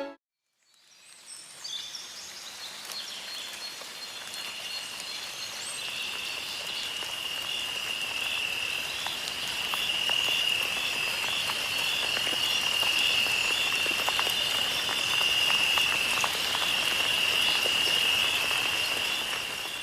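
A steady, high-pitched trilling chorus of calling animals, growing gradually louder.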